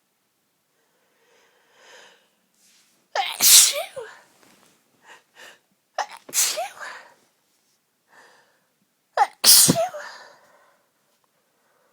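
A woman sneezing three times, about three seconds apart, each sneeze a sudden loud burst with a voiced "choo" and quick catching breaths in between.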